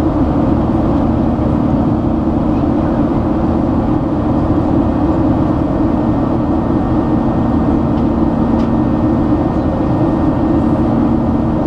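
Boeing 737-800 cabin in flight after takeoff, with its CFM56-7B turbofan engines running: a loud, steady rushing drone with a low, even hum running through it.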